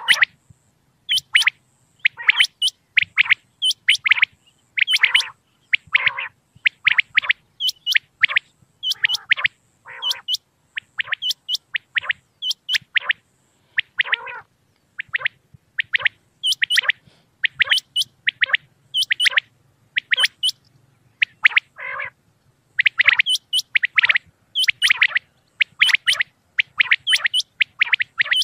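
Common quail calling over and over: short, sharp notes in quick groups, repeating about once a second.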